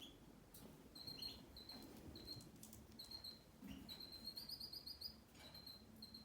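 Faint, high-pitched chirping repeating about twice a second, with a quick run of rising chirps about four seconds in.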